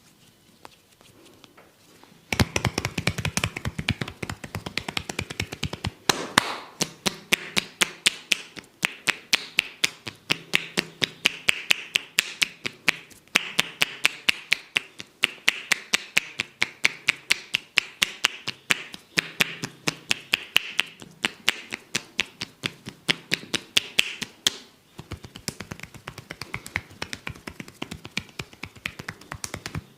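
A barber's hands rapidly tapping and chopping on the body in massage tapotement. The strikes come in an even run of about five a second, starting a couple of seconds in and becoming sparser near the end.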